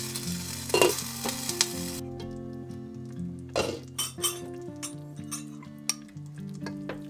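A pot of hot noodle soup hissing and bubbling for about two seconds as its glass lid comes off, with a clink of the lid. Then a metal ladle clinks several times against the pot and a ceramic bowl while soup is served. Soft acoustic guitar music plays underneath.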